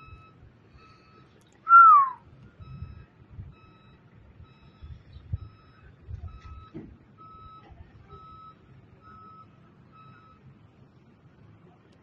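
A vehicle's reversing alarm beeping steadily, about once a second, and stopping near the end. About two seconds in comes a short, loud, falling whistle.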